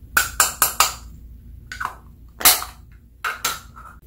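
Small plastic jars being tapped and shaken as chunky glitter flakes pour out into a glass dish: a quick run of four sharp rattling clicks, then a few more spaced apart, the loudest about two and a half seconds in.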